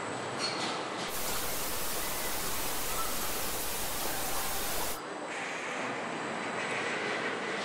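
Steady machinery noise of a car-body assembly line with industrial robots, a hiss and hum without a clear rhythm. The noise turns louder and brighter, starting and stopping abruptly, between about one and five seconds in.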